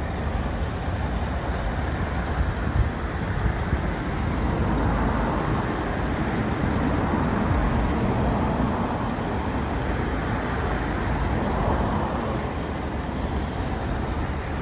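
Steady low rumble of heavy diesel vehicles running close by, with no distinct events standing out.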